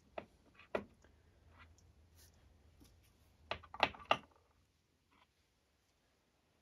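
Faint clicks and taps of plastic .410 shotgun hulls being set down and picked up on a bench: two single clicks near the start, then a quick cluster of clicks around four seconds in.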